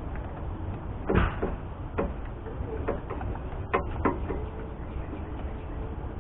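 Hands working at the inside of a truck door panel, fitting the vapor barrier: a handful of short knocks and rustles scattered over a steady low hum.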